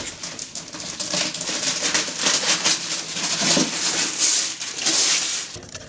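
Gift-wrapping paper being torn and rustled off a cardboard box: a dense, continuous crackling and ripping that stops about five and a half seconds in.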